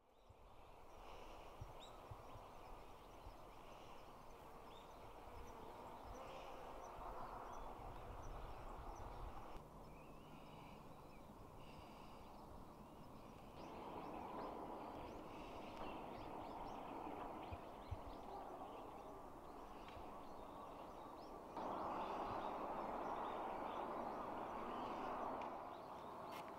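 Outdoor field ambience: a steady rushing haze that jumps in level a few times, with faint short bird calls over it.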